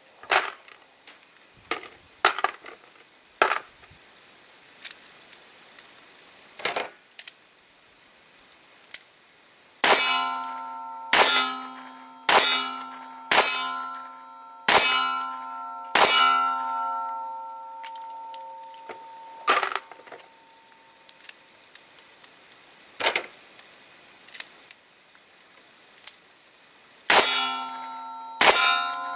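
Revolver single-action hammer falls on primed cases: sharp metallic snaps, a number of them followed by a metallic ring that dies away over about a second, with fainter clicks of cocking between. The loudest run comes as six snaps about a second apart near the middle.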